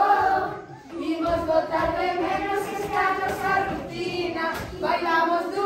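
A song with a sung melody playing, the voice holding long notes.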